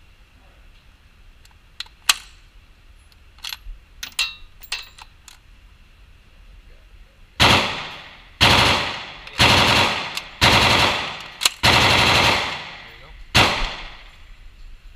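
A few sharp clicks and knocks of gun handling, then about six loud shots from a compact rifle roughly a second apart, each trailing off in the long echo of an indoor range lane.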